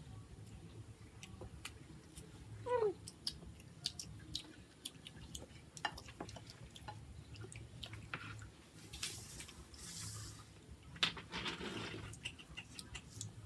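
Mealtime sounds: plastic spoons and forks clicking and scraping on plates and takeaway food boxes. About three seconds in there is one short, loud squeal that falls in pitch. Later come a sharp knock and a couple of brief rustles.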